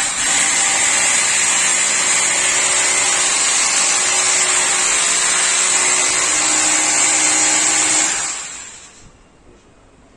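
Loud handheld power tool running at a steady speed for about eight seconds, then spinning down and stopping.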